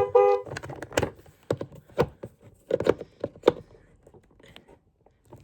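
Two short matching beeps, then a quick series of sharp clicks and knocks from small objects being handled, thinning out after about three and a half seconds.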